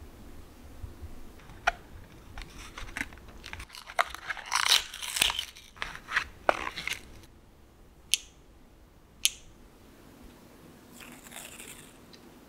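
Plastic packaging crinkling and tearing as hands unwrap a small plastic tape cutter, with scattered clicks, then two sharp clicks about a second apart. Near the end comes a soft peeling rustle as washi tape is pulled off its roll.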